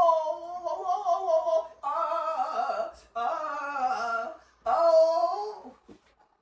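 A man's drawn-out, high-pitched moans, four in a row with short breaks between them, put on as pretended pain.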